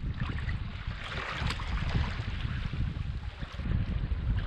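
Wind rumbling on the microphone over choppy sea water lapping and splashing against a kayak hull, with a slightly stronger splash about a second in.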